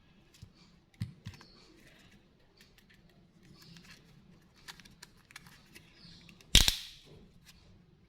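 Candy packages being handled: scattered small clicks and brief crinkling, with one loud sharp knock about six and a half seconds in.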